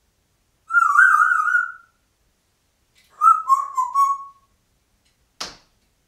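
African grey parrot whistling: a warbling whistle of about a second, then a run of short chirping notes stepping down in pitch, then a single sharp click near the end.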